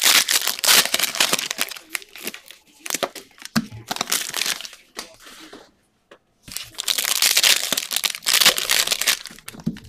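Wrapper of a trading-card pack being torn open and crinkled by hand, in two long bouts with a short pause in the middle.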